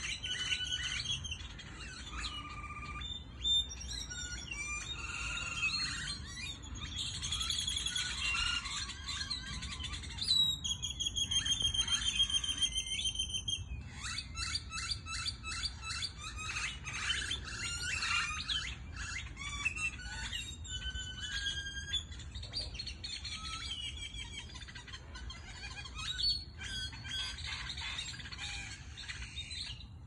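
Many small birds chirping at once in a dense, overlapping chorus of chirps and trills. A louder run of quickly repeated notes stands out for a few seconds about ten seconds in.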